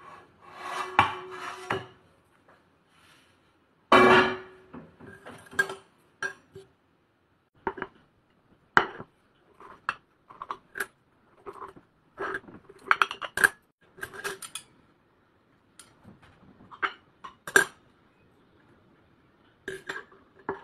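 Tableware against a ceramic plate: a frying pan scraping on the plate in the first few seconds, then a run of short clinks and scrapes from a fork and knife cutting a dosa on it.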